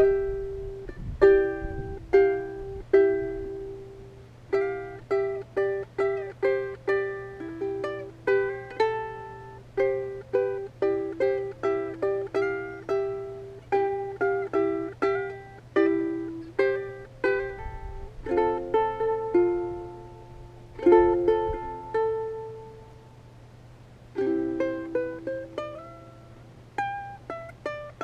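Instrumental music: a plucked string instrument, ukulele-like, picking a melody of single notes a few per second, with a couple of short pauses and a faint steady low hum underneath.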